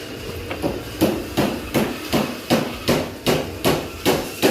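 Hammer striking repeatedly at an even pace, about two and a half blows a second, starting about half a second in.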